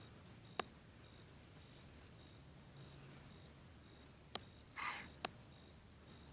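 Insects trilling steadily at a high pitch, with a sharp click just after the start and two more about a second apart near the end, and a short breathy hiss between those two.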